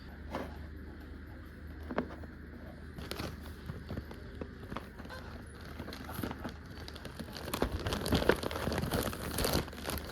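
Packaging being handled and unwrapped, with crinkling, rustling and scattered light taps that grow busier near the end.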